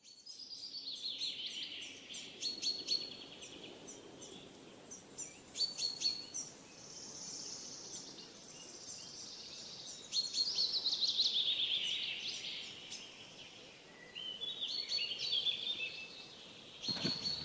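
Songbirds singing: repeated chirps, rapid trills and long whistled phrases that slide downward in pitch, overlapping one another.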